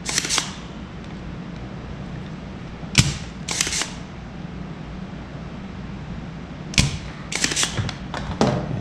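Spring-loaded desoldering pump (solder sucker) snapping sharply as its trigger releases the plunger to suck molten solder off circuit-board joints, twice about four seconds apart, each snap followed about half a second later by a short scraping clatter as the plunger is pushed back down to cock it. A few lighter clicks near the end.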